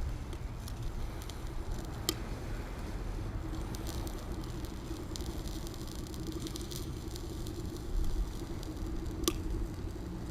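Small twig fire crackling in the base of a Kelly Kettle camp kettle, a steady run of small snaps with two sharper pops, about two seconds in and near the end, over a low steady rumble.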